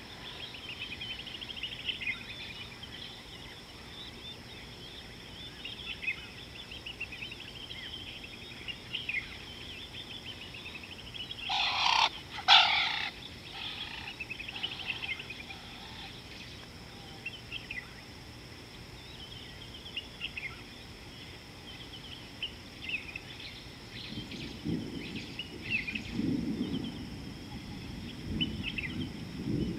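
Wild birds chirping and calling, with one loud, harsh two-note bird call about halfway through. Near the end, low splashing and sloshing of water as hippos move.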